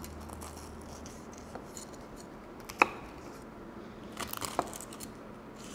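Knife cutting into a baked phyllo pie's crisp, sugar-dusted top, with a sharp click about three seconds in and a short run of light crackling crunches a little over a second later.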